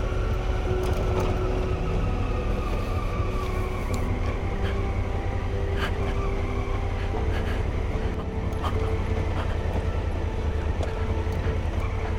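Adventure motorcycle's engine running at low speed over a loose gravel forest road, with a steady low rumble and a tone that slowly falls over the first few seconds. Scattered sharp clicks of stones under the tyres.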